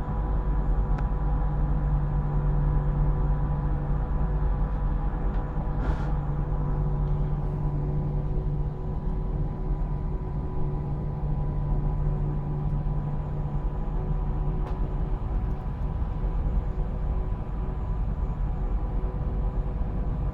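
ED250 Pendolino electric train running at a steady speed: a continuous rumble with a steady, many-toned hum.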